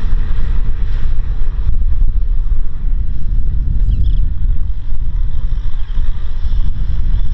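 Kubota M6040SU tractor's diesel engine running under load as it pulls a disc plough through dry soil, a steady low rumble, with wind buffeting the microphone.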